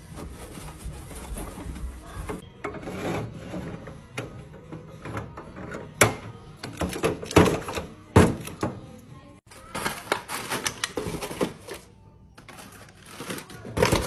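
Plastic food packages and cups clacking and tapping as they are set into refrigerator drawers and shelves, with a series of sharp knocks, loudest a little past the middle.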